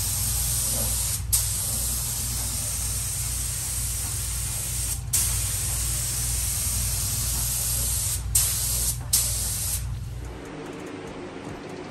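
Iwata HVLP paint spray gun hissing steadily as it lays down silver base coat, with a low hum underneath. A few sharp louder bursts come as the trigger is pulled again, and the spraying stops about ten seconds in.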